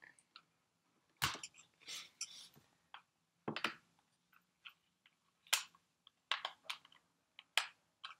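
Small screwdriver turning a screw out of a plastic calculator case: scattered faint clicks and scrapes, with a few sharper clicks.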